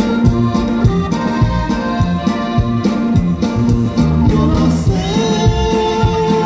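Live norteño band playing loud through a PA: accordion over drums, bass and guitar, with the accordion holding long notes in the second half.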